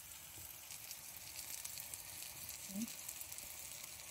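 Masala-coated brinjal (eggplant) slices shallow-frying in oil in a pan: a faint, steady sizzle with light crackling, the slices nearly done.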